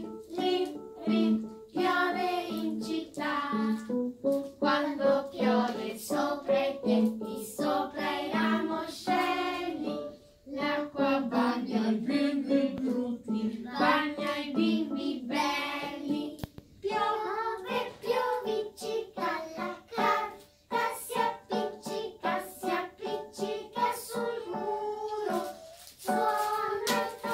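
Young children singing a song together to digital piano accompaniment. In the second half a run of short, sharp taps joins the singing.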